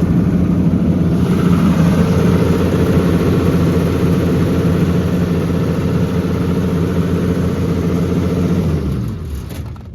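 Diesel engine of a Generac 30 kW generator running steadily, then shut off: about nine seconds in, its pitch drops and it winds down to a stop.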